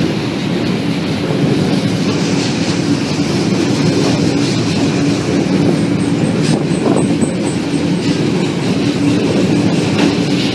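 Auckland electric commuter train running, heard from inside the carriage: a steady running noise with a constant hum and rail clatter.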